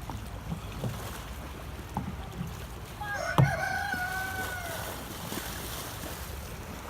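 A rooster crows once, a call of about a second and a half, about halfway through. Several short knocks come before and during it, the sharpest just as the crow begins, over a steady rushing background noise.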